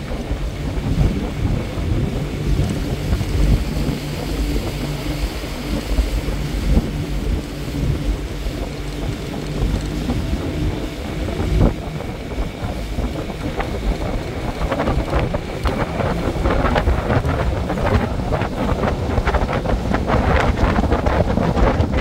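1984 Johnson 70 hp three-cylinder outboard running, with wind buffeting the microphone. Splashing water grows denser in the second half.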